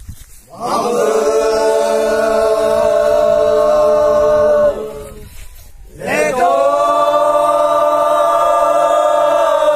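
A group of young men chanting together in unison: two long held notes of about four seconds each, each sliding up at the start, with a short break between.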